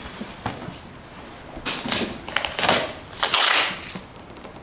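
Masking tape being pulled off the roll and torn off, in three short rips about a second apart.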